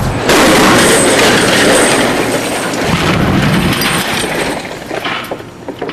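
A heavy car, about 4,600 pounds, dropped from a crane crashing onto a steel-reinforced concrete slab: a sudden loud crash with shattering, then noise that fades away over several seconds.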